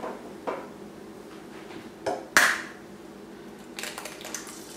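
An egg knocked against the rim of an electric skillet to crack it: a couple of light knocks, then one sharp crack about two and a half seconds in, with a few faint clicks near the end as it is opened over the pan.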